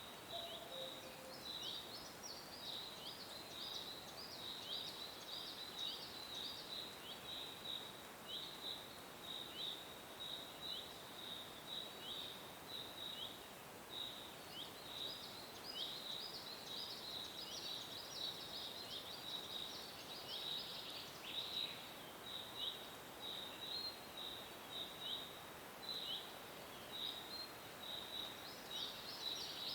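Small birds chirping steadily: short, high chirps repeat about twice a second, with livelier flurries now and then, over a soft even hiss.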